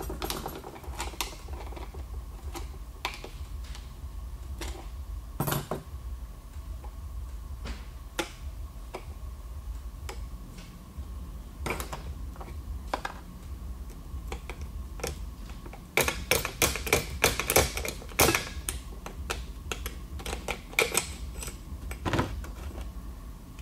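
Scattered metallic clicks and clinks as clutch drums, plates and small parts of a ZF 5HP24 automatic transmission are handled and pulled apart by hand. A quick flurry of louder clicks comes about two-thirds of the way through.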